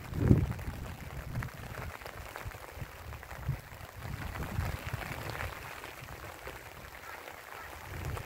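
Light rain pattering as scattered fine drops, with wind buffeting the microphone in uneven low rumbles, strongest about half a second in.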